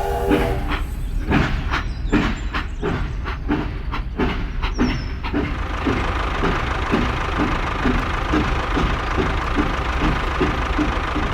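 Train running on rails: a horn cuts off just after the start, then clacking that settles into a regular rhythm of about two knocks a second over a steady hum.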